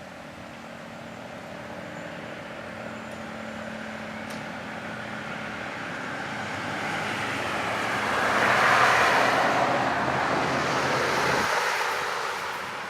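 A car drives past: its road and tyre noise swells to a peak about nine seconds in, then fades away.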